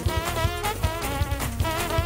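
Live church band playing upbeat gospel music: sustained wavering keyboard chords over a quick, steady drum beat.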